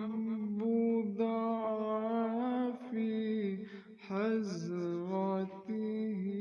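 A single voice singing a na'at, an Islamic devotional song, in long held notes with sliding ornamental turns between them.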